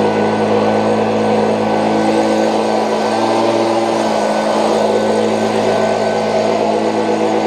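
Leaf blower running steadily: a small engine's steady hum under a rush of air, blowing loose bits of concrete off the driveway.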